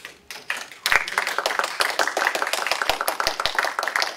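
A small audience applauding: a few hand claps, then a steady patter of clapping from about a second in.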